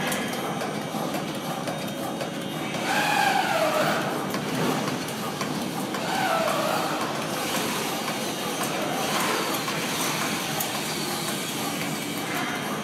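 Non-woven sheet cutting machine, a computer-controlled breadthwise cutter, running with a steady mechanical noise. Two short wavering high tones cut in about three and six seconds in.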